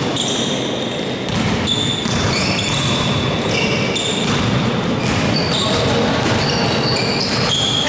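Basketball being played on an indoor court: many short, high-pitched sneaker squeaks on the floor, with the ball bouncing and players moving.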